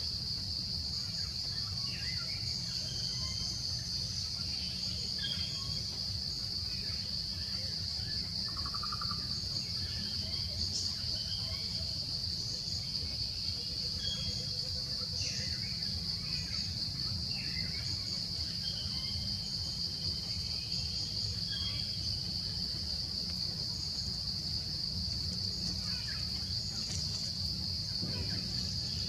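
Forest insects (crickets or cicadas) droning in one steady high-pitched band, with short bird chirps scattered over it and a low steady rumble beneath.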